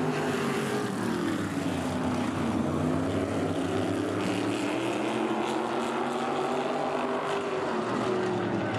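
A pack of modified race cars running at speed, several engines overlapping. The engine pitch sinks about a second in, then climbs again as they accelerate.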